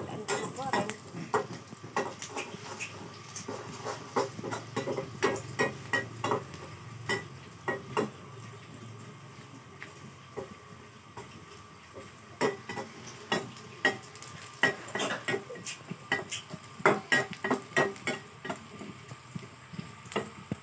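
Metal spatula scraping and clinking against a small wok as spice paste fries in oil: irregular clicks and scrapes over a light sizzle. There is a quieter stretch about halfway through, then the clinking picks up again.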